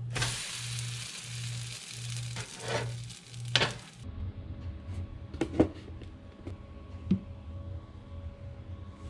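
Pancake sizzling on a hot griddle as it is flipped, with a couple of sharper scraping hisses near the end of the frying. The sizzle cuts off after about four seconds, leaving background music with a steady beat and a few light clicks.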